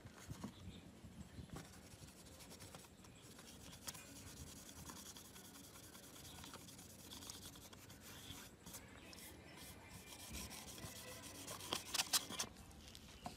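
Cotton wad rubbing and wiping over a phone's mid-frame: a faint scrubbing with small clicks, growing louder near the end.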